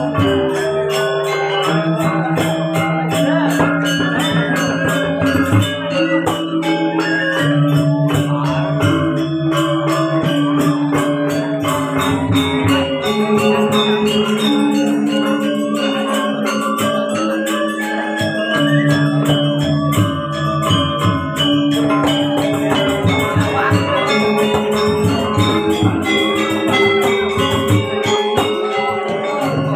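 Balinese gamelan playing: bronze metallophones and gongs ring out a melody in sustained notes that step from pitch to pitch, over a fast, even run of high metallic strokes.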